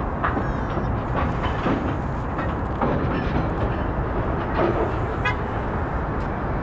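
Freight train rolling past with a steady rumble of wheels on rail and scattered clicks.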